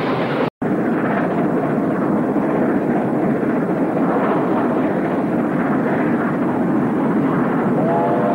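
NSWGR steam locomotive hauling a train, a continuous heavy rush of exhaust and running noise; the sound drops out for an instant about half a second in. Near the end a multi-note chime whistle starts to blow.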